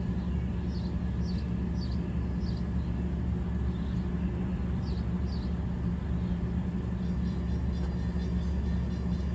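Parked diesel locomotive idling with a steady low drone. A bird chirps several times during the first half.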